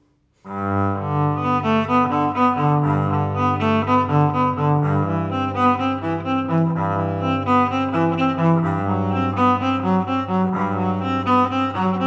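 Yamaha SVC-210 silent electric cello being bowed through its onboard room reverb setting, a small-salon reverb. Starting about half a second in, a melody plays over a sustained low note.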